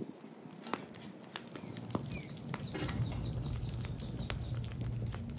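Live oak and charcoal fire crackling, with irregular sharp pops and snaps. A low, steady rumble joins in about two seconds in.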